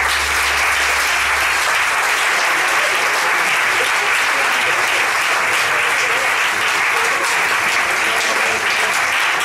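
Audience applauding, steady loud clapping.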